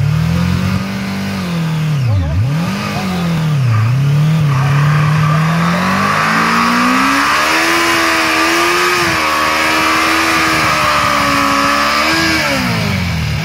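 Suzuki GSX600F's inline-four engine revving hard through a stationary burnout, its rear tyre spinning against the asphalt. The revs dip twice in the first few seconds, then climb and hold high before dropping near the end.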